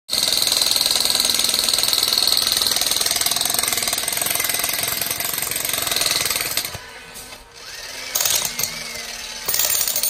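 Jackhammer pounding rapidly into rocky ground. It runs loud and continuous for most of the first seven seconds, then comes in two short bursts near the end.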